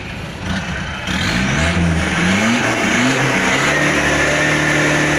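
Isuzu pickup's direct-injection diesel engine accelerating hard on a drag run. The engine pitch climbs about a second in, drops at a gear change and climbs again, then holds steady at high revs.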